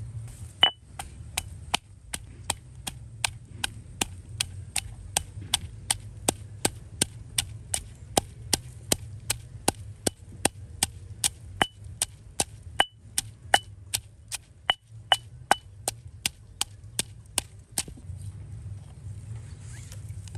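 Stone pestle pounding fresh red chilies in a stone mortar: a steady run of sharp strikes, about three a second, that stops a couple of seconds before the end.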